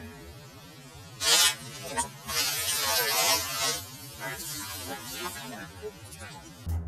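A garden hose nozzle spraying a hissing jet of water while a husky snaps at the stream and makes wavering, yowling sounds, loudest about two to four seconds in.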